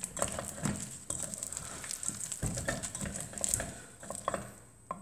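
Wooden spoon stirring and scraping a sticky mass of hot caramelized sugar and chopped almonds in a stainless steel pot: irregular scrapes and knocks against the pot, with a sharp knock near the end.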